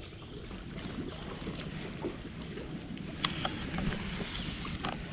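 Steady wind and low rumble aboard a fishing boat on the lake, with a few faint clicks.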